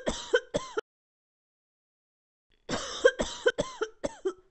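A person coughing in two fits: three coughs at the start, then, after a pause of about two seconds, a longer run of about six coughs that trail off.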